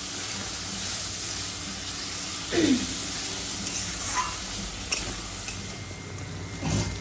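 Onion-tomato spice masala and potatoes sizzling in oil in a metal wok while a steel spatula stirs and scrapes the pan. It is the masala being fried down until the oil separates.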